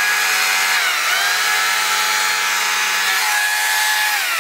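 Dolmar cordless battery chainsaw in turbo mode, its electric motor and chain running at high speed with a steady high whine. The speed dips briefly and recovers about a second in.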